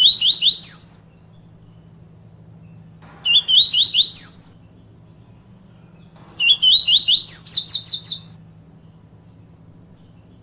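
A papa-capim seedeater singing its 'tui tui viviti' song. It sings three phrases a few seconds apart, each a quick run of rising notes that ends in higher sweeping notes, over a faint low hum.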